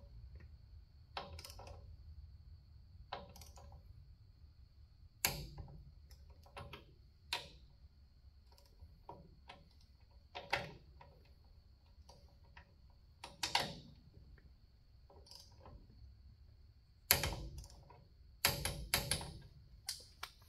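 Scattered sharp metal clicks and knocks of hand tools, about a dozen spread apart with the loudest bunched near the end, as a torque wrench and sockets are worked on the ball-joint bolts of a 1968 Chevrolet C10's front suspension.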